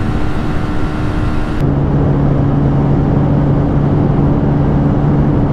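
Two 125cc single-cylinder Bajaj motorcycle engines running flat out near top speed over heavy wind rush. The sound is first the Pulsar 125; about a second and a half in it switches abruptly to the Pulsar NS125, a steady engine drone held high in the revs.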